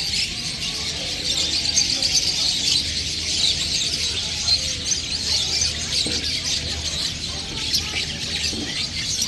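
A chorus of many small caged birds chirping and twittering at once, a dense continuous chatter of short high calls, over a low steady hum.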